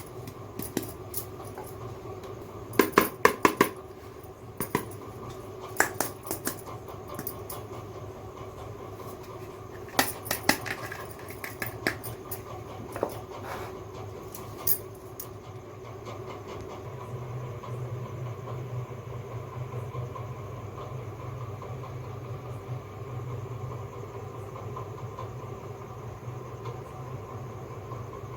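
Small plastic toy kitchen pieces clicking and clattering as they are handled and set down, in several short clusters through the first half. After that only a steady low hum remains.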